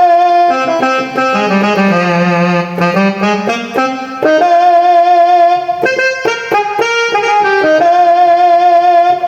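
Saxophone sample on an electronic keyboard playing a melodic phrase, with vibrato on the longer held notes, over some lower accompanying notes in the first half.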